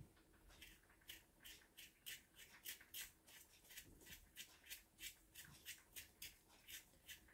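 Faint, quick scraping strokes, about four a second, as the skin is peeled off a boiled potato by hand.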